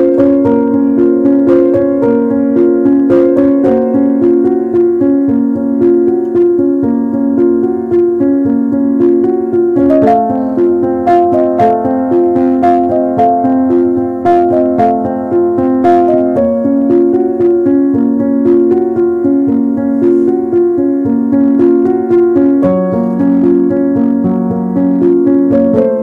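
Background music: a gentle piano melody playing steadily.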